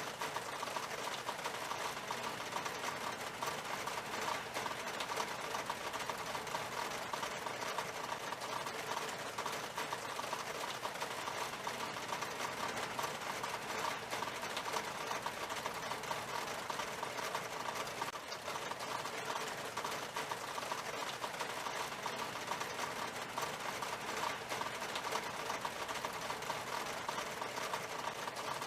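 Steady rain falling on window glass, an even, unbroken patter.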